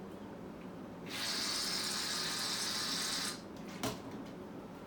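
Salt poured steadily into the slime mixture, a hiss lasting about two seconds, followed by a single light click.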